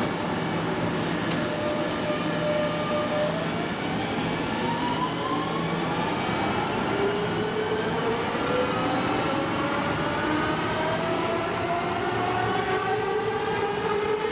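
Class X10 electric commuter train pulling away: its traction motors whine in several tones that climb steadily in pitch as it gathers speed, over the steady rumble of the train running.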